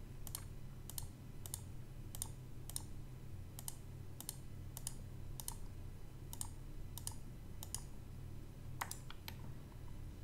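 Computer mouse clicking at an even pace, about one click every 0.6 seconds, as labels are placed one by one in a schematic editor, with a louder double click near the end. A low steady hum runs underneath.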